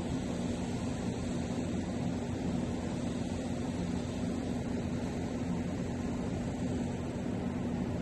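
Steady low droning hum with an even hiss over it, unchanging throughout.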